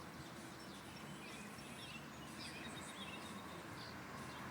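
Faint outdoor background noise with scattered short bird chirps.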